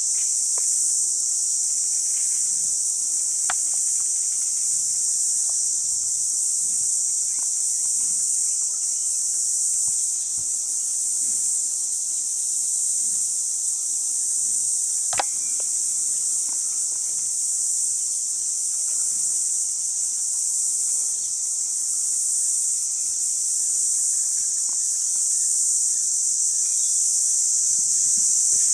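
Steady high-pitched drone of an insect chorus in the bush. A single sharp click cuts in about halfway through.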